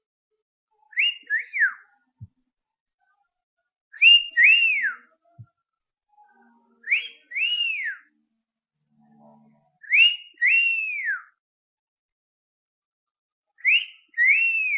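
Two-note wolf whistle (catcall), repeated five times about every three seconds. Each note is a quick glide up and back down, the second note longer than the first.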